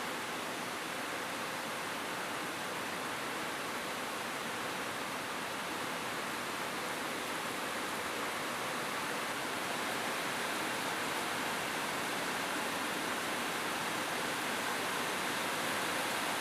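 Steady rain falling on a roof, an even hiss with no distinct drops or thunder, growing slightly louder about two-thirds of the way through.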